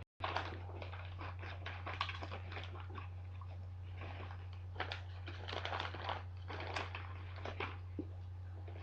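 Paper vacuum filter bag being handled and pushed into an upright vacuum's outer bag: irregular crinkling and rustling with small clicks and knocks, over a steady low hum.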